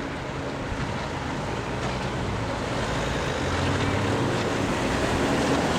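Engine of a runaway recreational motorboat running at speed as it circles, heard at a distance over wind and background noise, growing louder about halfway through.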